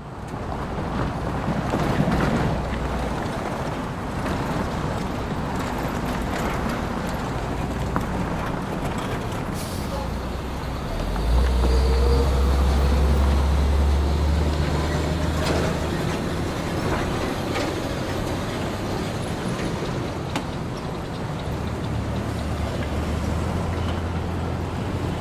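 Small-town street ambience: steady road traffic with vehicles passing, and a heavy vehicle's low engine rumble that swells loudest for a few seconds near the middle.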